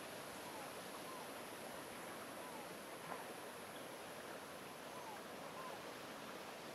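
Quiet outdoor ambience: a steady, even hiss, with a few faint short whistled notes, each a small pitch glide, recurring every second or so.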